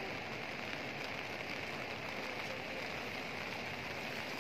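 Steady, even rushing hiss of outdoor ambience, with no distinct events.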